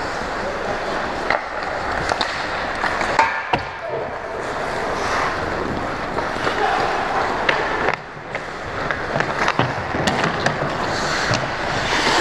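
Ice hockey skate blades scraping and carving on the ice close to the goal, with several sharp clacks of sticks and puck.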